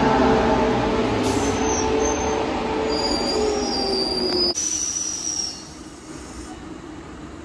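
Queensland Rail electric suburban train braking to a stop at the platform: its motor whine falls in pitch, with high squeals from the wheels and brakes through the middle. The running noise drops away suddenly just past halfway as the train halts.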